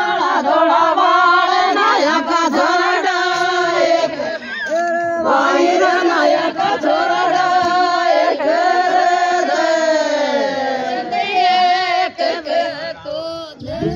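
A group of women singing a traditional Rajasthani folk song (ladies' Meena geet) together, in long held lines.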